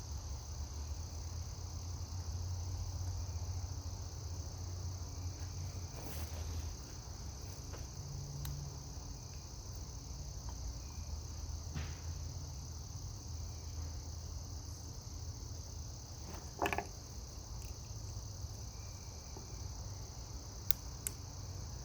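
Steady high-pitched chirring and a low hum, with a few short, faint clicks of small metal engine parts being handled while a wrist-pin circlip is worked into a two-stroke piston.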